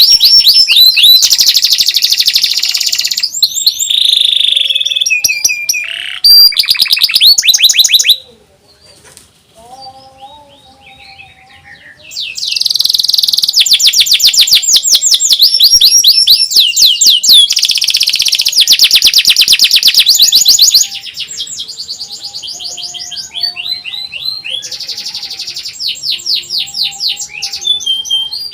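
Domestic canary singing: long, loud, rapid rattling trills of fast repeated down-sweeping high notes. There is a quieter stretch of soft chirps about eight to twelve seconds in, and the trilling turns softer near the end.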